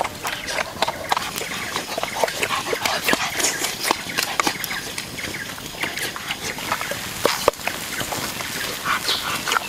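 Open wood fire crackling, with many small sharp pops and snaps over a steady hiss.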